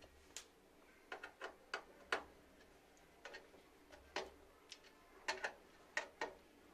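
Faint, scattered light clicks and taps, about a dozen at irregular intervals, from small hard parts being handled during PC assembly.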